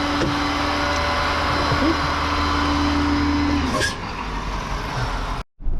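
Tow truck engine running with a steady drone and hum. About four seconds in the drone falls away with a short hiss, and the sound drops out briefly near the end.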